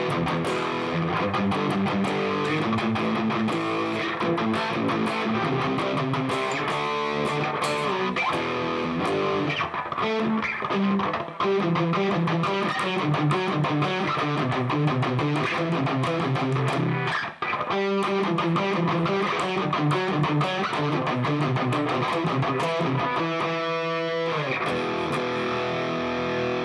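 Electric guitar played through a guitar amp's crunch channel with the gain turned all the way up: distorted chords and riffs with short breaks about 11 and 17 seconds in. The player finds the tone not quite high-gain enough, lacking a Peavey 6505's bite.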